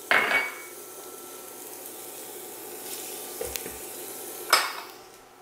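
Ginger and garlic hitting hot peanut oil in a wok: a sharp sizzle as they go in, settling into a steady sizzle, with a second flare of sizzle about four and a half seconds in as more goes into the pan. A faint steady whine from the induction burner runs underneath.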